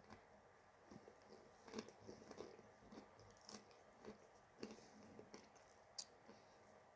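Faint, irregular crunching and clicking of a honey roasted nut being chewed, the crunches coming about half a second to a second apart.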